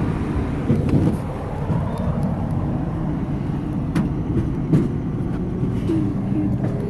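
A large vehicle's engine running steadily close by as it moves past in front, with sharp knocks about four and about five seconds in.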